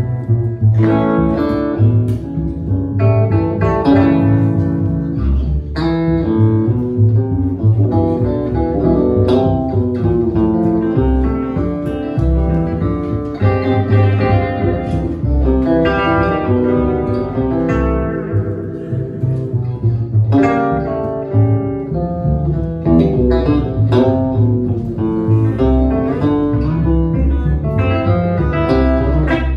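Live instrumental music: a hollow-body electric guitar playing a run of quick plucked notes, with a plucked upright double bass pulsing underneath.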